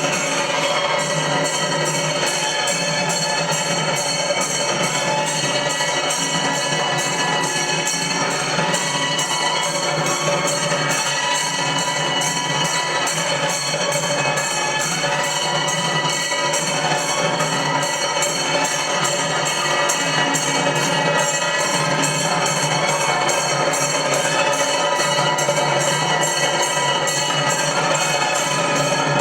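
Loud music with a steady, even beat, playing without a break.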